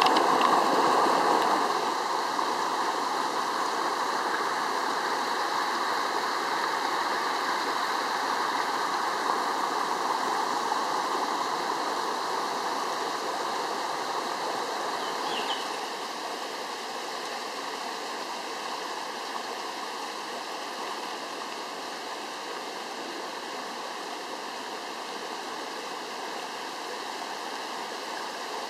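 Swollen, muddy forest stream in flood after a downpour, water rushing and splashing steadily. The rush is loudest at first and steps down about two seconds in, then again about halfway through.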